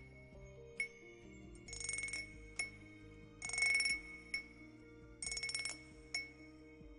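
Bright metallic chimes of a rhythm wind-chime cup ASMR trigger, rung in a steady rhythm: a quick shimmering jingle about every 1.7 seconds, with a single chime strike between each, over soft background music with held low notes.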